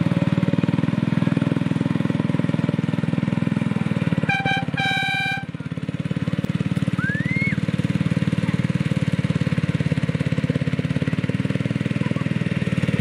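Small engine of a ride-on miniature diesel-outline locomotive running steadily as it hauls a loaded passenger carriage. About four seconds in its horn sounds: two short toots, then a longer one.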